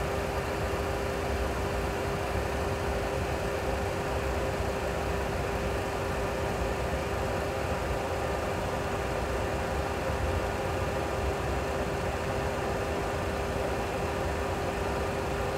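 Boeing 737 Classic full flight simulator cockpit with the simulated jet engines at taxi idle: a steady, even rush over a low rumble, with a held hum-like tone.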